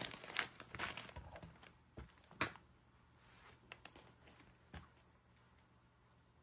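Plastic packaging crinkling and rustling over the first couple of seconds, with a few sharp clicks and taps, the loudest about two and a half seconds in and another near five seconds.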